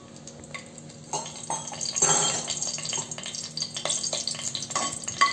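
Whole spices (bay leaves, cinnamon and cloves) sizzling in hot ghee and oil in an aluminium pressure cooker, with scattered light clicks. The sizzle gets louder about two seconds in.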